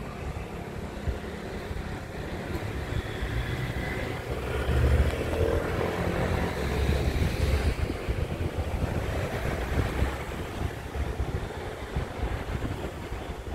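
Street traffic: a steady low rumble of motor vehicles, with one vehicle passing and growing louder about halfway through before fading.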